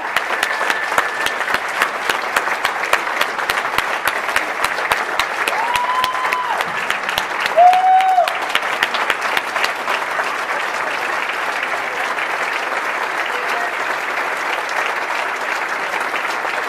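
A large audience applauding steadily in a standing ovation, dense clapping throughout, with a couple of short high calls rising above it about six and eight seconds in.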